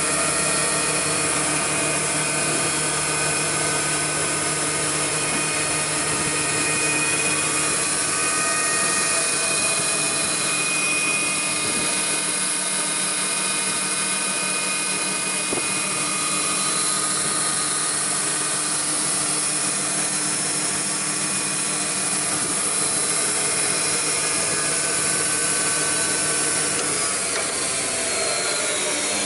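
Altendorf F-90 sliding table panel saw running without a cut, a steady machine hum with several whining tones. Near the end it is switched off and the pitch falls as the motor and blade spin down.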